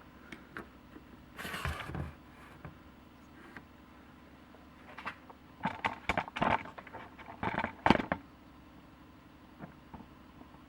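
Handling noise from metal workshop parts: scattered knocks, clicks and scrapes, busiest around six to eight seconds in, over a faint steady hum.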